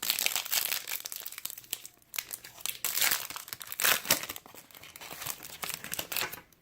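A trading-card pack wrapper being torn open and crinkled by hand: irregular crackling and tearing with a short lull about two seconds in and louder crackles around three to four seconds in.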